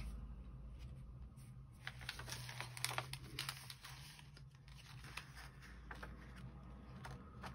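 Old paper and sheet-music pages being turned and handled, giving soft scattered rustles and crinkles.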